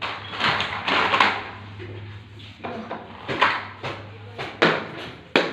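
Sharp knocks or slaps, roughly one a second, after a short burst of rustling noise, over a low steady hum.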